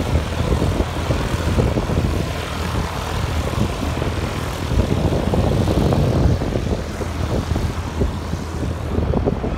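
A propeller aircraft engine running steadily, with a dense, low-heavy drone that rises and falls a little but never stops.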